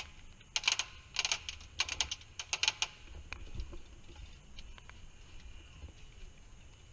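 Airsoft gunfire: four quick bursts of sharp clicking snaps between about half a second and three seconds in.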